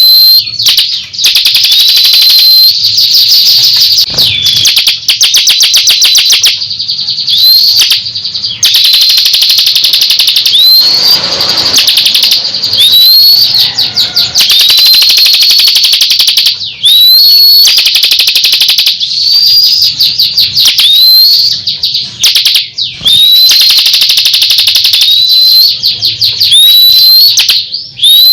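Ciblek kristal (bar-winged prinia) singing loudly and continuously. Rapid buzzy trills alternate with short upswept whistled notes, with only brief pauses.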